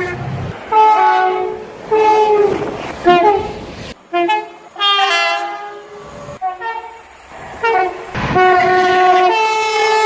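A series of British train horn blasts from several different trains, each a two-note horn. There are short toots in the first few seconds, an abrupt change of clip about four seconds in, and a long blast near the end.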